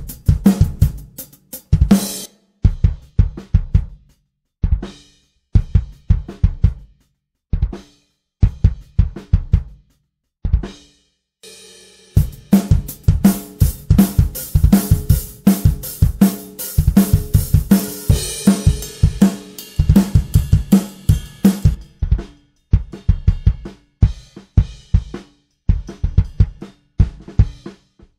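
Drum kit played in short test grooves: a heavy Yamaha bass drum with snare, hi-hat and cymbals. The phrases are broken by brief pauses, then a longer, busier stretch with cymbal crashes in the middle.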